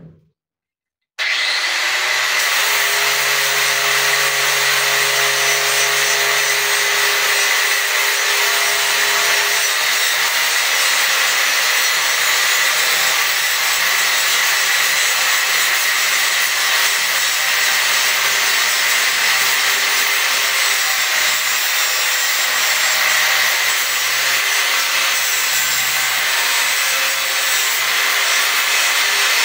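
Angle grinder stripping rust off steel greenhouse pipe. It starts abruptly about a second in and then runs steadily under load, with a high whine over the grinding noise.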